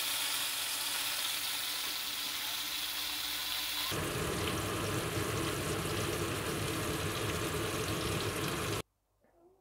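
Fish pieces sizzling as they shallow-fry in oil in a nonstick frying pan, a steady hiss. The sound grows fuller and lower about four seconds in and cuts off suddenly near the end.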